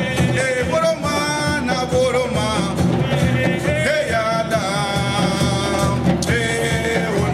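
Live West African drumming on djembe and dunun drums, a steady driving rhythm, with a voice singing over it.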